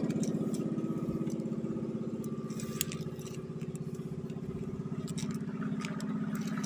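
A small engine running steadily nearby with an even, fast pulsing beat. A few light clicks and taps sound over it, one sharper at about three seconds in.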